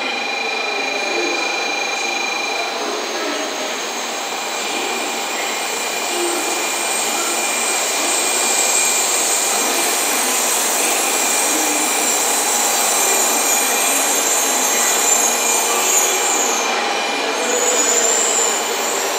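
16-car N700 series Shinkansen train pulling slowly into a station platform: a steady rush of running noise with thin, steady high tones, growing a little louder as the cars glide past.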